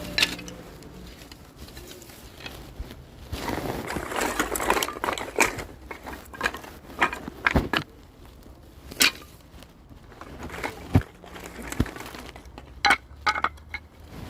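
Irregular knocks, clicks and clatter of wood and tools being handled in a woodworking shop, with a brief rustling, scraping stretch a few seconds in. No saw is running.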